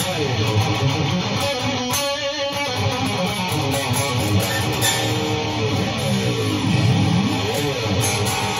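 Electric guitar played continuously: a run of strummed chords and notes with some pitch glides, sounding in tune after the strings were just retuned.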